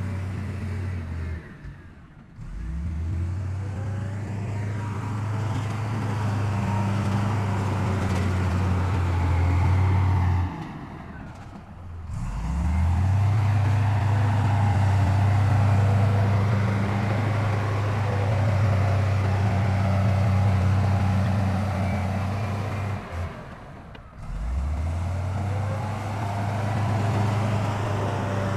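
Heavy diesel engines of earthmoving machinery running with a steady low drone. The sound drops away sharply three times and picks up again each time.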